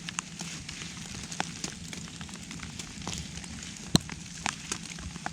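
Raindrops ticking irregularly in quick small crackles over a low steady background, with one sharper click about four seconds in.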